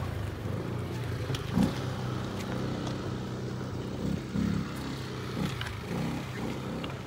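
A motor vehicle's engine running steadily, a low even hum, with a few brief louder moments over it.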